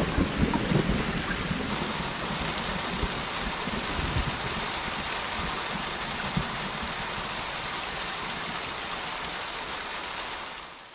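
Steady rain pouring down, with a low rumble of thunder dying away at the start; the rain fades out near the end.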